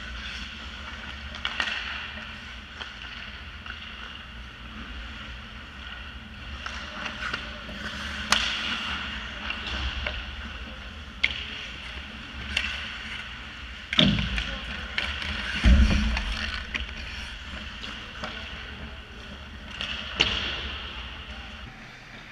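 Ice hockey play on a rink: skate blades scraping the ice, with sticks and puck clacking in a string of sharp knocks and a couple of heavier thumps about two-thirds of the way through.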